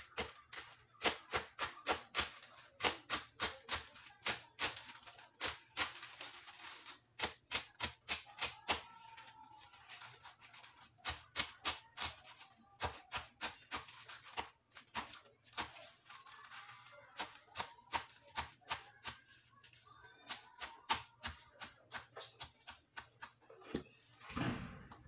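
Kitchen knife chopping mustard greens on a wooden cutting board: a quick run of sharp knocks, about three or four a second, with short pauses between runs.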